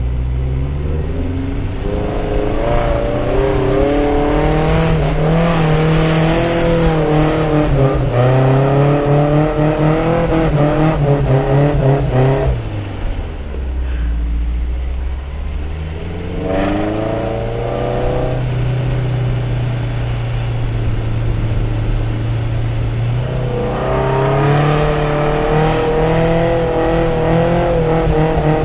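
A 4x4's engine revving under load as it drives through soft dune sand, its pitch climbing and falling with the throttle. The revs drop away sharply about twelve seconds in, settle to a low steady hum, then rise again twice.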